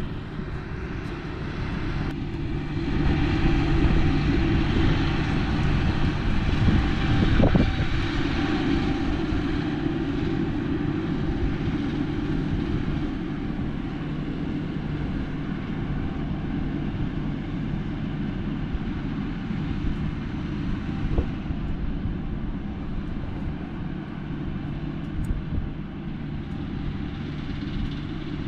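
John Deere 5045E tractor's diesel engine running steadily under load while pulling an MX8 rotary cutter through rough field growth. It is a little louder for several seconds near the start.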